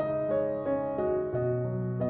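Background piano music: a gentle melody of single notes over sustained bass notes.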